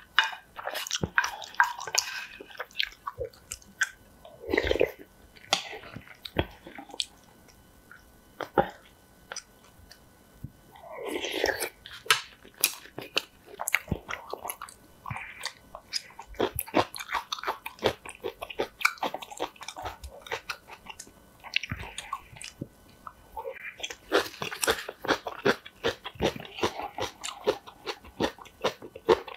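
Close-miked chewing and biting of spicy noodles and rice, with crunching from napa cabbage kimchi and small clicks of the spoon and chopsticks. There are two louder, longer mouth sounds about five and eleven seconds in.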